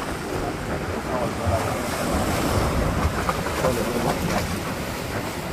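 Ocean surf breaking on a granite rock jetty, a steady rushing wash, with wind buffeting the microphone.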